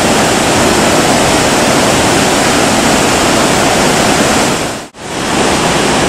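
Naena Falls, a large waterfall plunging into a boulder-strewn river: a loud, steady rush of falling and churning water. About five seconds in the rush briefly fades out and comes straight back.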